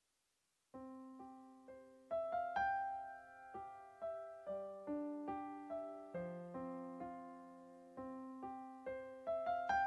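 Slow, gentle solo piano music begins about a second in, single notes and chords that each ring and fade away.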